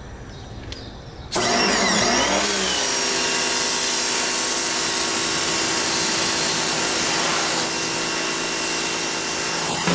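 Sun Joe SPX3000 electric pressure washer starting up abruptly about a second in, then running steadily: the electric motor's hum under the hiss of the high-pressure water spray.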